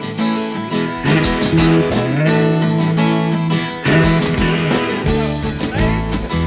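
Instrumental rock music with strummed guitars over a bass line and a steady beat, with no singing.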